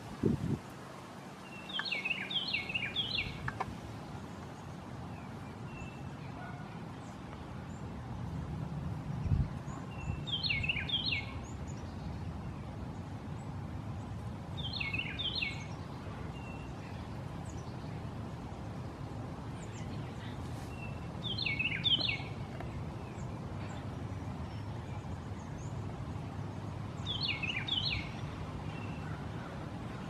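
Eastern bluebird singing short warbled phrases of a few quick notes, five times about every five or six seconds, over a steady low background rumble. A dull thump comes near the start and another about nine seconds in.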